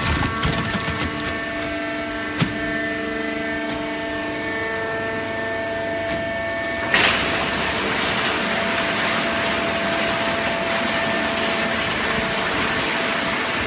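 Horizontal hydraulic baling press running on shredded paper: a steady machine hum with several held tones and a few knocks, one sharp knock a couple of seconds in. About seven seconds in, a louder steady rushing noise starts suddenly and continues.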